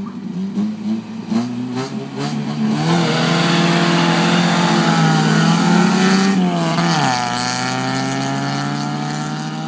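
Engines of a Chevy 350 V8 pickup and a straight-piped Honda Accord at full throttle in a drag race. The revs climb in quick steps for the first few seconds, then hold loud and high for a few seconds. About seven seconds in the pitch drops sharply and then climbs slowly again, a little quieter.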